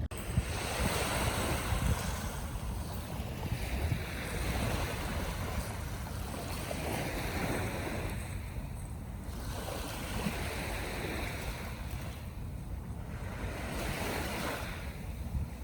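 Sea waves breaking and washing on the shore, swelling and falling in repeated surges a few seconds apart. A steady low rumble of strong wind buffets the microphone beneath them.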